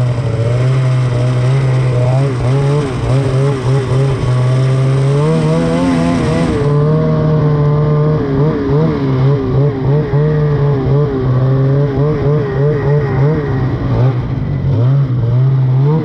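Ski-Doo snowmobile engine running under throttle, its pitch wavering up and down with the throttle and stepping up about five seconds in.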